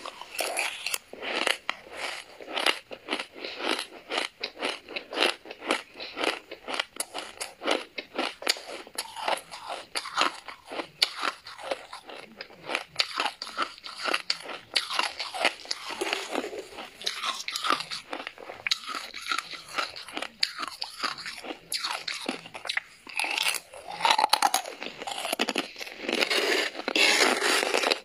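Freezer frost being chewed in rapid crisp crunches, several a second. Near the end, a metal spoon scrapes more frost off the inside of the freezer.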